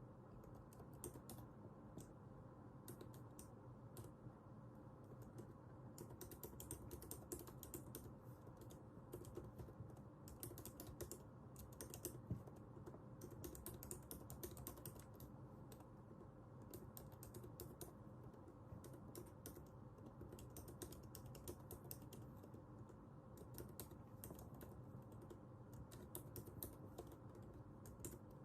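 Computer keyboard typing in quick bursts of key clicks with short pauses between, quiet over a steady low room hum.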